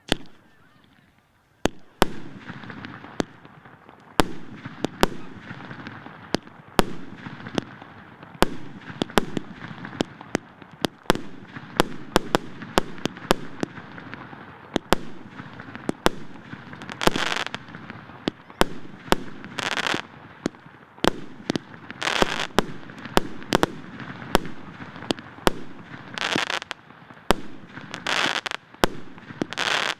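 A 54-shot, 1.3-inch firework cake ('Ultramarine' СП058049-54) firing shot after shot: sharp reports about one to two a second, with crackling in between. In the second half several shots end in longer crackling bursts.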